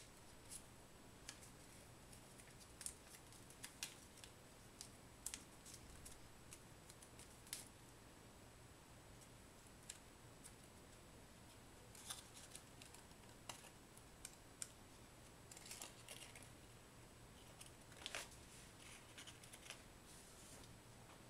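Faint crinkling and soft irregular clicks of paper being creased and pinched into pleats by hand, the sounds of folding a small sheet of origami paper.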